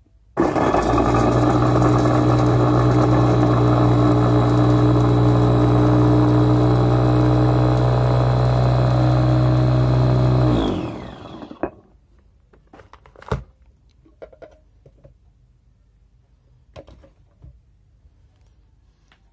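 Electric mini food chopper's motor running steadily for about ten seconds as its blade chops onions, then winding down in pitch when it is switched off. A few light clicks and knocks follow as the chopper is handled.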